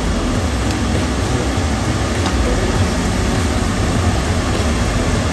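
Diced potatoes frying in hot oil in a wok: a steady sizzle, over a low rumble.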